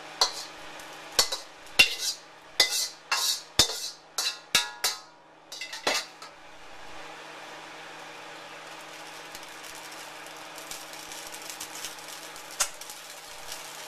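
Slotted metal spatula clanking and scraping against a wok, about ten sharp strikes in quick succession over the first six seconds, then a faint steady sizzle with small crackles from the hot pan, and one more clank near the end.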